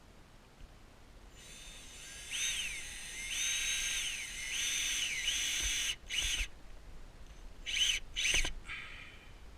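Power drill run in about seven short pulses of the trigger, its motor whine rising in pitch as it spins up and falling as it slows each time; the longer pulses come first and shorter ones near the end.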